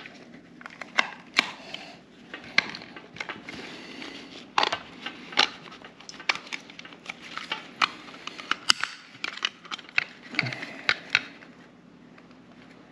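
Irregular clicks and taps of a J1772 EV charging handle's housing parts being handled, lined up and pressed together by hand.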